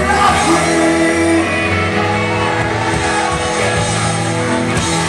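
Live rock band playing loud, guitar-driven music with held chords, mostly without singing.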